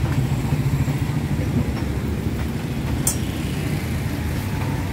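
Steady low engine rumble of motorbikes and traffic on the street, with a brief high hiss about three seconds in.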